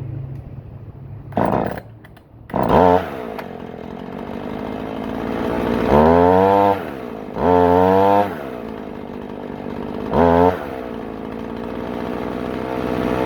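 Husqvarna 450 two-stroke chainsaw started while hot, then revved hard four times with its pitch rising and falling, running unevenly between the revs. The owner hears it starting to flood when hot, which he puts down to a carburetor problem.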